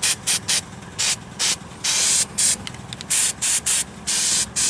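Aerosol can of weld-through primer spraying in a rapid series of short hissing bursts, a few held a little longer. The primer is being applied to bare patch-panel metal before welding.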